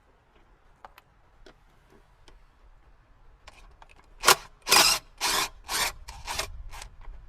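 Hand work in a car's engine bay: a few faint clicks and taps, then five or six loud rasping strokes about half a second apart, like tools or parts scraping against each other.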